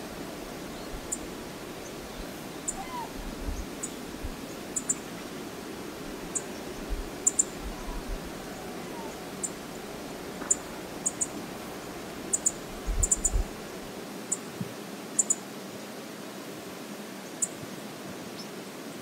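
Steady outdoor rush of wind and water at a river shore, with low wind buffets on the microphone now and then and many short, sharp high ticks scattered through it.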